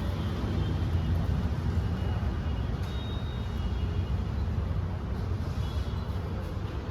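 Steady low rumble of road traffic, with a few faint short high tones.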